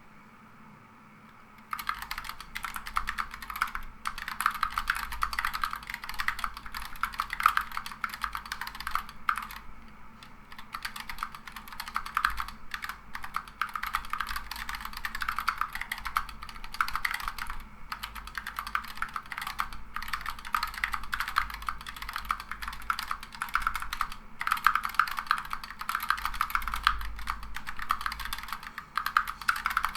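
Typing on an Ergodox EZ split mechanical keyboard with Zealios V2 67g tactile switches and SA-profile keycaps: a fast, steady stream of key clacks that starts about two seconds in.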